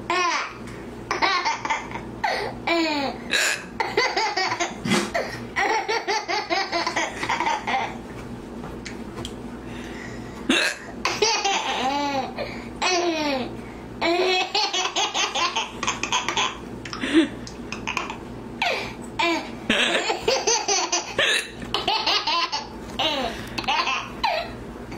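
A baby laughing in long bursts of quick, high-pitched giggles, set off by a woman's hiccups, which come as short single sounds between the bursts.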